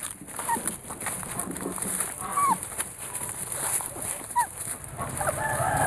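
Young puppies squeaking while they nurse: short high squeaks that rise and fall, about every second or two, over the rustle of the litter moving on a tarp and dry leaves. A longer call holding several tones comes near the end.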